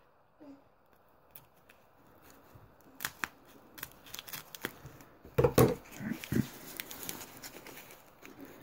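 Scissors cutting open a package's wrapping: quiet at first, then sharp snips from about three seconds in, the loudest a little past halfway, followed by the crinkle of the wrapping being handled and pulled open.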